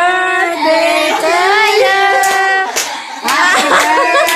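A group of voices, children among them, singing together for a birthday, holding long notes. A few hand claps come in during the second half.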